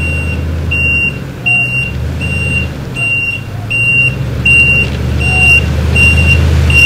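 Toyota pickup truck reversing: a high back-up alarm beeps steadily about once every three-quarters of a second over the low rumble of the running engine.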